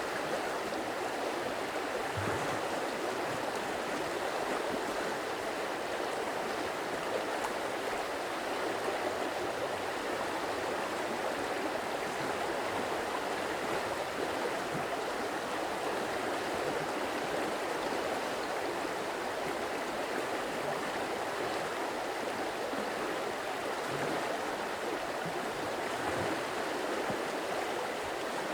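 Stream water running steadily, an even rushing sound with no change through the stretch.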